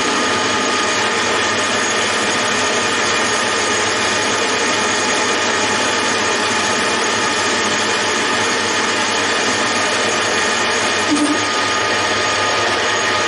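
Metal lathe running at speed, its spindle and gear train giving a loud, steady mechanical whir with a faint steady whine.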